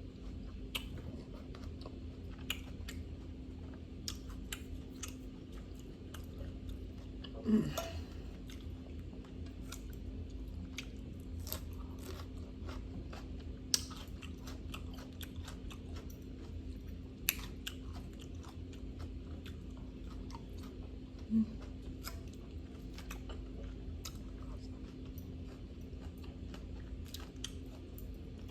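Close-miked chewing of a grilled salmon salad, with scattered sharp crunches of raw vegetables.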